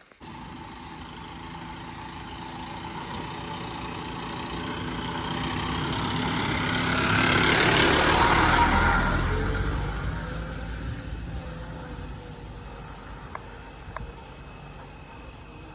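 A motor vehicle drives past, its sound growing to a peak about halfway through and then fading away.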